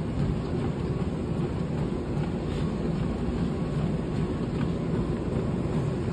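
Life Fitness treadmill running under a walker or jogger: a steady low rumble of motor and belt.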